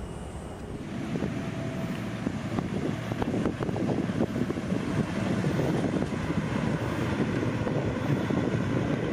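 Kawasaki P-1 patrol aircraft's four IHI F7-10 turbofan engines heard as a rumbling jet noise, growing louder over the first few seconds as the aircraft comes in low toward the listener.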